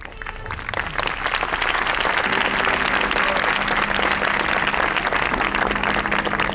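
A large audience applauding, the clapping swelling within the first second into dense, sustained applause. A few steady low tones sound underneath from about two seconds in.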